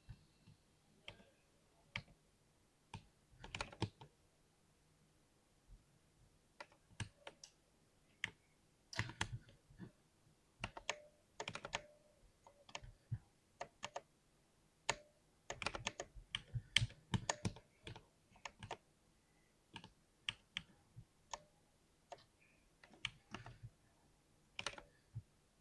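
Typing on a 60% keyboard: soft clicky keystrokes in irregular quick runs with short pauses between them.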